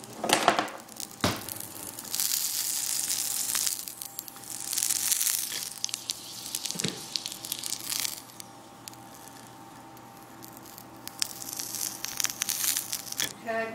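Whole orange sizzling in a hot frying pan, the hiss swelling and fading in waves. Near the end a silicone spatula turns the orange, bringing a stretch of clicks and louder sizzle.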